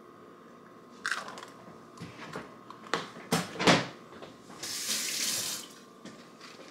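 A few knocks and clatters, then a kitchen tap runs for about a second, a short steady rush of water.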